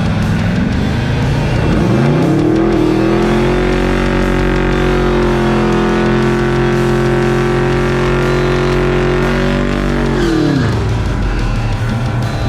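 A V8 car engine climbs in pitch about two seconds in, holds a steady pitch, then drops off near the end, over rock music with guitar.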